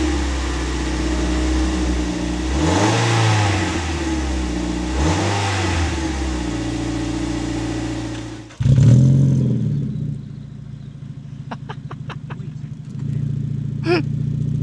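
Mazda MX-5 NC four-cylinder engine idling on its stock exhaust and blipped twice, the revs rising and falling back each time. Then a second MX-5 NC with an ISR backbox delete starts up with a sudden loud flare that drops to a steady idle, which steps up a little near the end.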